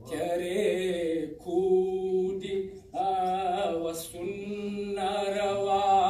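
A man's voice chanting in long held notes, phrase after phrase with short breaks between them, each note wavering slightly in pitch, amplified through a microphone in a hall.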